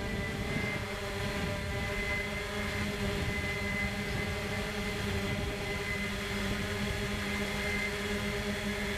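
A small camera drone's propellers buzzing steadily in flight, holding one pitch.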